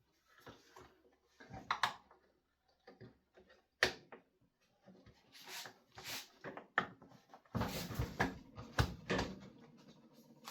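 Plastic engine cover of a leaf blower being handled and worked into place: scattered clicks and knocks of plastic parts, a sharp click about four seconds in, and a busier stretch of rubbing and knocking near the end.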